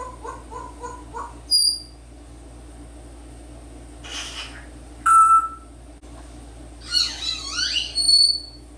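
African grey parrot whistling and calling: a quick run of short chirps, about four a second, then separate clear whistles, a short rough squawk, and near the end a burst of warbling, gliding calls that finishes on a high whistle.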